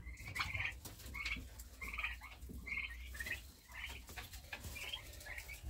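Short, high animal calls repeated roughly every half second to second, over a steady low hum.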